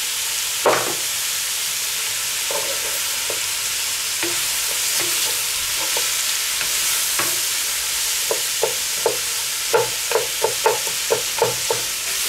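Diced vegetables and tomato paste sizzling in oil in a cast-iron Dutch oven over charcoal, while a wooden spatula stirs them and knocks against the pot: one knock about half a second in, then a quick run of knocks from about eight seconds.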